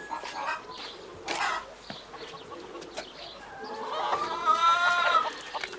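A hen clucking in short calls, then one longer drawn-out call about four seconds in.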